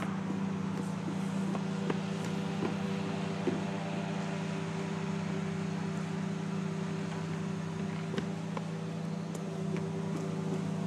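A steady machine hum from a motor or engine running at constant speed, with a few faint taps scattered through it.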